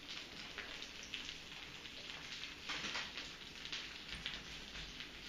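Food sizzling in a frying pan under a mesh splatter screen: a steady, crackling hiss.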